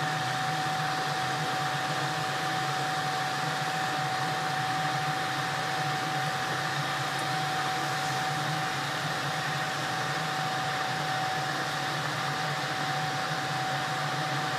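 Steady hum with a constant whine and a hiss from a deep fryer running on high while strips of namak paray dough fry in the oil.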